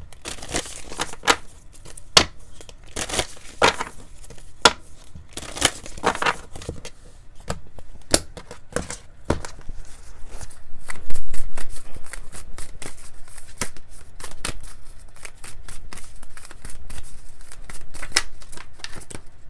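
A deck of oracle cards being shuffled by hand: quick, irregular clicks and slaps as the cards slide against one another. There is a louder, denser stretch of rustling about eleven seconds in.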